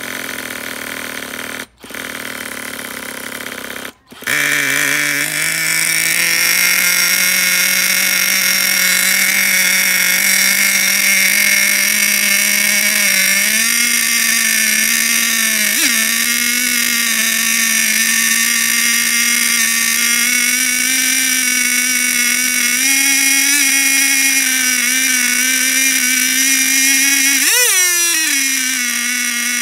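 A cordless drill spins over the Traxxas Nitro Rustler's small two-stroke nitro glow engine, with two short breaks. About four seconds in the engine catches and runs steadily at a fast idle, unloaded because no clutch is fitted. Near the end its pitch briefly rises and falls.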